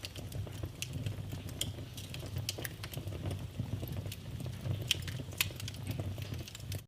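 Wood fire crackling in a fireplace: irregular sharp pops and snaps over a steady low rumble of the burning logs. The sound cuts out for an instant near the end.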